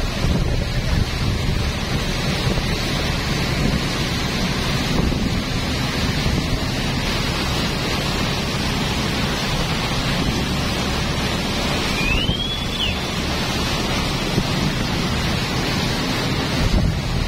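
Wind buffeting the microphone aboard a moving river boat, over a steady low rumble of engine and water. About twelve seconds in, a brief high whistling tone rises and then drops.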